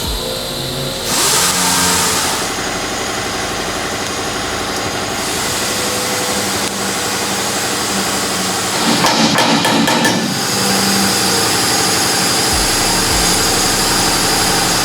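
A motor running steadily, with a rougher, pulsing stretch about nine seconds in.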